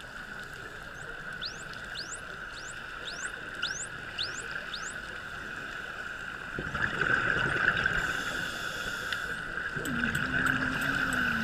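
Bottlenose dolphins whistling underwater: a run of short rising whistles in the first half, over a steady hum. A little past halfway a loud rushing noise comes in, and near the end a low wavering tone falls away.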